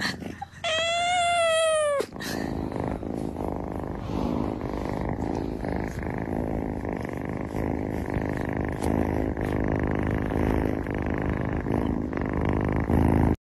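A cat meows once, a long call that rises and then falls in pitch, then purrs steadily for the rest of the time.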